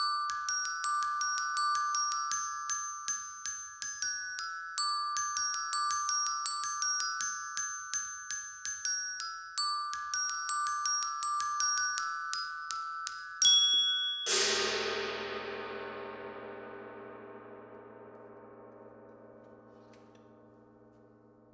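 Glockenspiel played in a fast, repeating figure of a few high bell-like notes. About fourteen seconds in, a large hanging gong is struck once and rings on, its shimmer slowly dying away.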